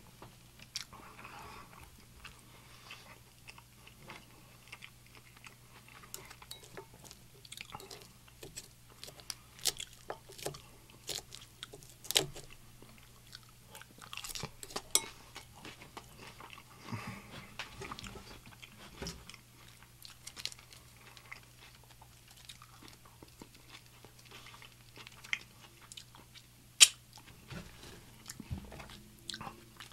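Close-miked eating: chewing and crisp crunching with sharp mouth clicks, the food spooned from a ceramic bowl, with a utensil clinking in the bowl now and then. A faint steady low hum runs underneath.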